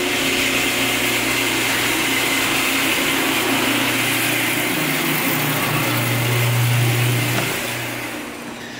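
Electric garage door opener motor running as the door travels up, a steady mechanical hum and rattle that fades out near the end as the door stops.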